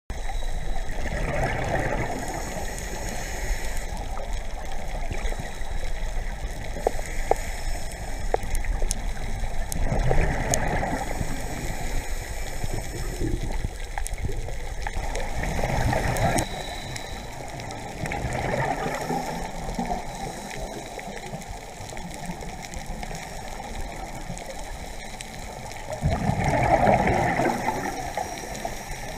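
Heard underwater: a scuba diver's exhaled bubbles gurgling out of the regulator in bursts several seconds apart, the loudest near the end, over a steady hiss with scattered sharp clicks.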